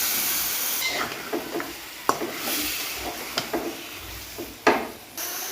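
Chicken pieces sizzling as they fry in a spice paste in a pan, stirred with a spatula that knocks against the pot several times, the loudest knock near the end.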